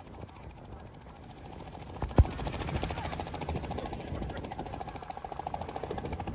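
Goodyear airship's propeller engines droning with a fast, even pulse, growing louder as it passes low. A single sharp thump about two seconds in.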